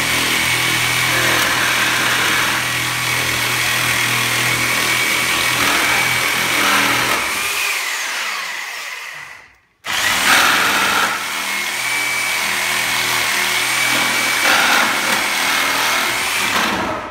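DeWalt DWE305 reciprocating saw cutting through thick pallet wood and heavy nails. It runs, winds down with a falling whine and stops about nine and a half seconds in, then starts again straight away and cuts until near the end.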